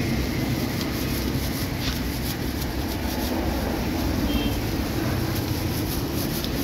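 A steady low rumble, with light scattered clicks and rustles from plastic-gloved hands pressing a bamboo mat around a rice roll.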